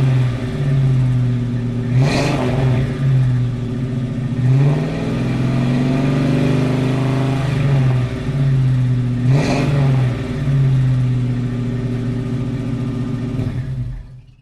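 Ford Mustang engine revving again and again, its pitch rising and falling every second or two. Two brief sharp noises cut through, about two seconds in and again about nine seconds in, and the sound fades out near the end.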